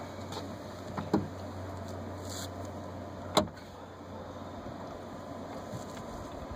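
Sharp metallic clicks of a small socket being worked against the end fitting of a trunk lift gas strut to free it from its bracket: two close clicks about a second in and a louder one past three seconds, over a steady low hum.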